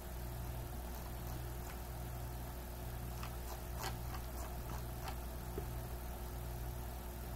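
A few faint, irregular clicks from a computer mouse, clustered in the middle, over a steady low electrical hum.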